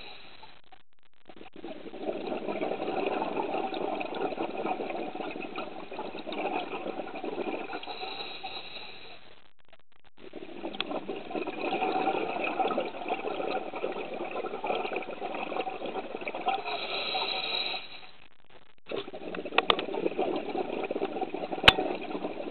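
A scuba diver breathing through a regulator underwater: long stretches of bubbling and hissing breath in cycles of about nine seconds, each broken off by a brief pause. A sharp click sounds near the end.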